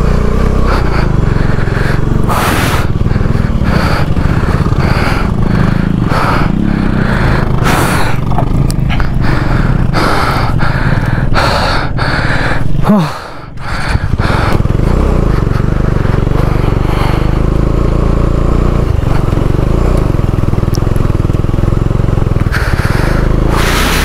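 Motorcycle engine running as the bike climbs a rough, rocky dirt track, a steady low rumble broken by frequent knocks and rattles as it jolts over stones. Just after halfway the sound briefly drops away, with a short rising whine.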